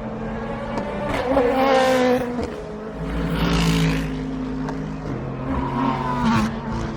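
Race cars passing at speed, about three in succession, each engine note swelling and then dropping in pitch as the car goes by.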